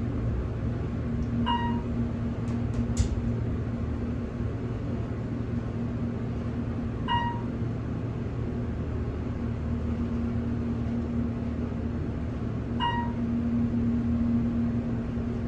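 Elevator car travelling upward with a steady hum and rumble of the ride, marked by three short electronic beeps about five and a half seconds apart as it passes floors. A single sharp click about three seconds in.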